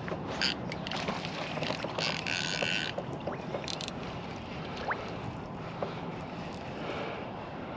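Water lapping against a canoe hull with wind on the microphone, scattered small knocks, and a short hissing rush about two seconds in.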